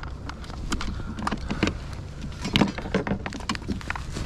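Scattered knocks, taps and clatter against a plastic kayak's deck and fittings as a freshly landed halibut and fishing gear are handled, the loudest cluster a little past halfway. Low wind rumble on the microphone.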